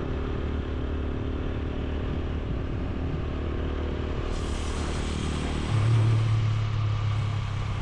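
Motorcycle engine running steadily while being ridden, with wind and road noise. About six seconds in, the engine note steps up in pitch and swells briefly.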